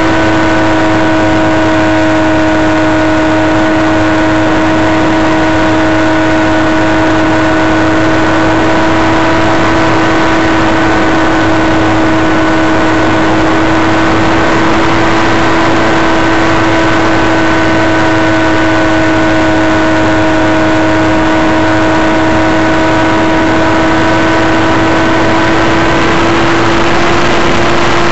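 Powered glider's motor running steadily in flight, heard from the onboard camera as one held, even whine with overtones. There is a dense rush of air noise under it, and the highest overtone fades out near the end.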